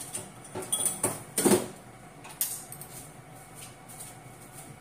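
Kitchenware being handled: a few clinks and knocks in the first two and a half seconds, the loudest about a second and a half in.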